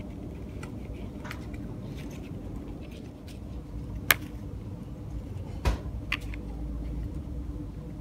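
Small sharp clicks from hands handling a small folding grafting knife and a grape vine stem, a loud one about four seconds in and two more soon after, over a steady low background rumble.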